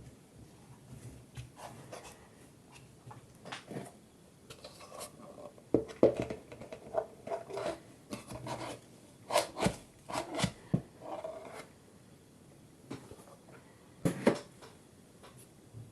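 Kinetic sand being worked and shaped: soft rubbing and scraping with scattered sharp taps and knocks, loudest in a few clusters about a third of the way in, past the middle and near the end.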